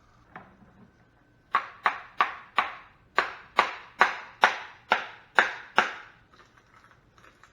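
Eleven sharp knocks in a steady rhythm, about two and a half a second, starting about a second and a half in. They are a cartridge fuse being knocked to shake out its sand filler.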